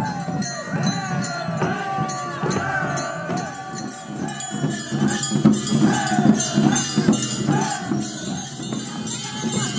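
Small bells jingling continuously over a crowd's voices, with a rhythmic low beat underneath.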